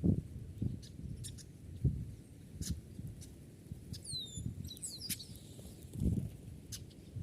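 A small bird gives a quick series of high chirping notes about four seconds in, over intermittent low rumbles and scattered sharp clicks.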